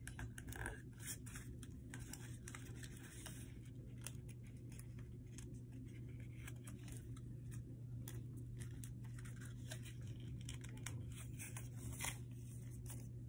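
A paper sheet being folded and creased by hand: soft rustling and many small crackling ticks, over a steady low hum.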